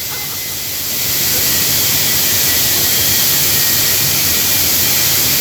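CNC cutting machine's torch hissing steadily and loudly as it cuts, the hiss swelling about a second in and then holding even.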